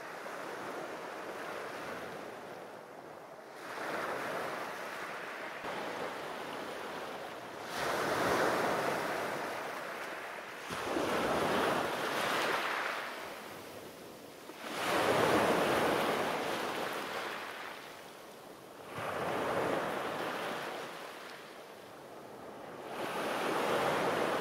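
Small waves breaking on a pebble beach and washing back over the stones, in surges that swell and fade about every four seconds.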